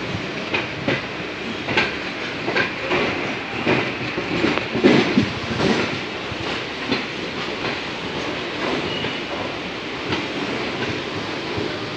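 Train rolling through a station, heard from on board: its wheels knock over rail joints and points in an uneven clatter over a steady rumble, busiest about four to six seconds in.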